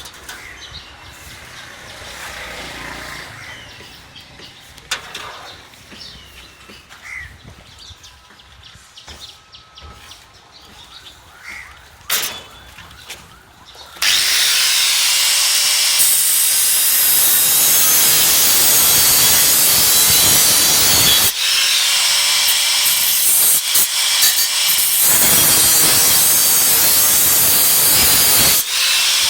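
A power tool cutting metal: about halfway in, its motor spins up with a rising whine and it cuts with a loud, harsh grinding hiss. It stops briefly twice and spins up again each time. Before it starts, there is only quieter background with a few short chirps.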